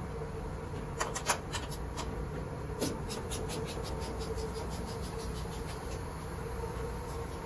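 Steady machinery hum of a bank of running industrial laundry tumble dryers, with a held tone and low rumble. A few sharp clicks sound about a second in, then a run of quick, light ticks, about four or five a second, that fade away.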